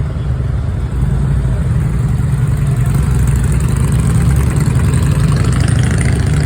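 Heavy diesel engine of a fire truck running close by, a steady low rumble that grows louder about a second in.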